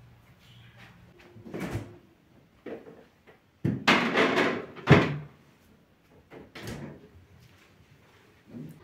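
A refrigerator door is opened and shut while a glass baking dish is set on a shelf inside: a few separate knocks and rattles, the loudest about five seconds in.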